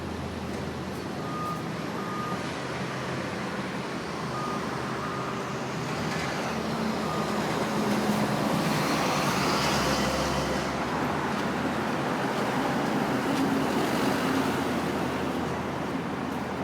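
Street traffic noise, growing louder in the middle as vehicles pass, with a few short high electronic beeps in the first several seconds.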